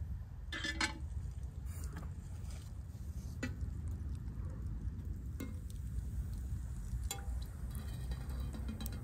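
A metal frying pan clinking onto a small outdoor stove about a second in, followed by a few light knocks and clinks of cooking utensils over a steady low rumble.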